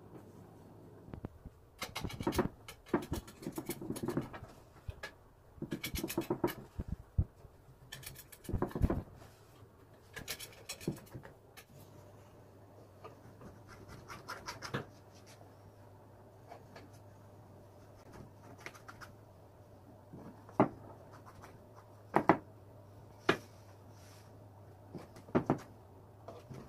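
Phyllo pastry being trimmed and cut in a metal baking tray: scraping and rustling of a pizza cutter and torn-off pastry strips through the first half, then several short sharp clicks in the second half as a knife cuts down through the layers to the tray.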